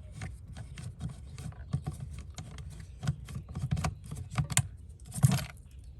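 A screwdriver working the screws of an outdoor outlet's cover plate: a steady run of small irregular clicks and scraping of metal on plastic, with a louder scrape a little after five seconds in.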